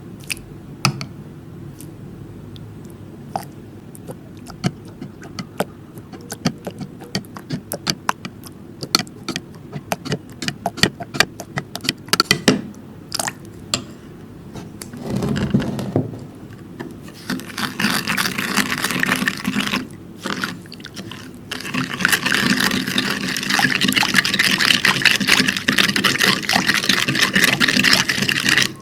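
Slime-making ingredients being handled and mixed in a container: scattered light clicks and taps, then from about 17 seconds in a dense, continuous scraping and swishing that breaks off briefly about 20 seconds in.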